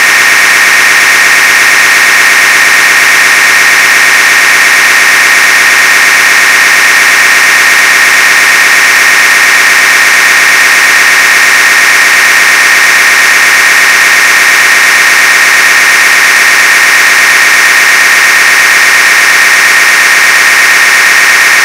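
Loud, unchanging static noise with a steady high-pitched buzz running through it: signal noise from a blank stretch of the video transfer, with no picture or recorded sound.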